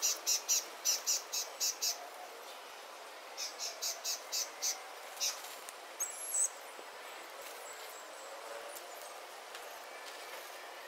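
A small bird chirping outdoors in two quick runs of short high chirps, about three a second, with a sharper call just past the middle, over a faint steady hiss.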